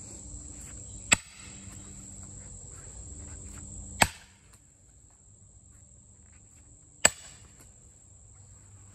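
An eight-pound sledgehammer strikes a steel splitting wedge driven into a red oak log three times, about three seconds apart. Each blow gives a loud metallic ping that rings briefly, as the wedge is driven deeper to split the round.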